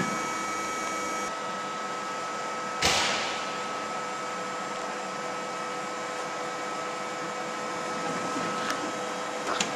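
Okuma LB 200-6 CNC lathe running with a steady hum and two constant tones. About three seconds in there is a sudden noisy burst that fades over about half a second, and a couple of short clicks come near the end.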